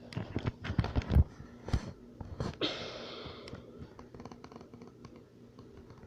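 A quick run of knocks, clicks and scrapes, then a short hiss about two and a half seconds in, fading to faint scattered ticking.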